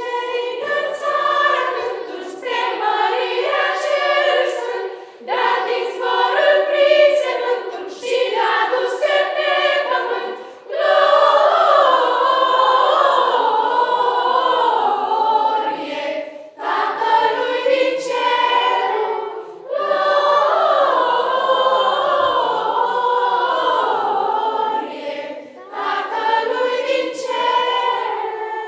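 Children's choir singing a Romanian Christmas carol (colindă) a cappella, in phrases with short breaks between them.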